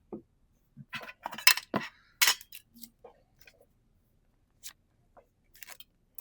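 Pokémon trading cards and booster-pack packaging being handled: a quick cluster of sharp clicks and crinkles about a second in, then a few fainter ticks.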